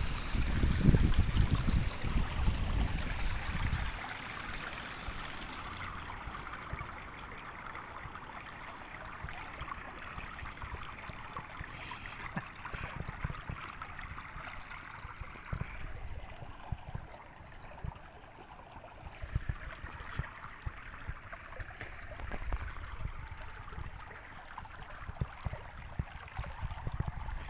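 Shallow stream water trickling and gurgling over stones. Low buffeting of wind on the phone's microphone is strongest in the first few seconds and returns in short gusts later.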